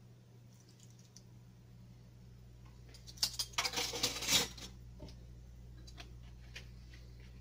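A quick run of small clinks and rattles from kitchen utensils, lasting about a second and a half, starting about three seconds in, over a steady low electrical hum.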